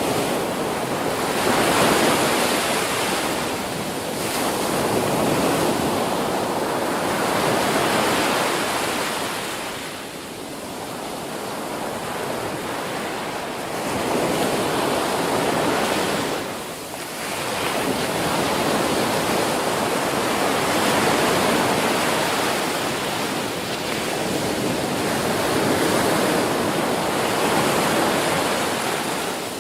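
Ocean waves breaking on a beach: a continuous wash of surf that swells and eases every few seconds, with brief lulls about ten and seventeen seconds in.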